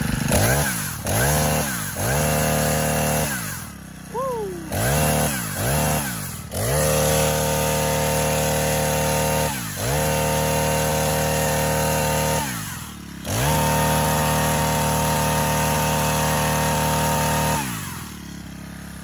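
Small chainsaw engine running and being throttled: several quick revs up and down, then held at high revs three times for a few seconds each, with short dips between, before dropping back a little more than a second before the end. The carburetor is out of tune, which the owner says he will have to adjust.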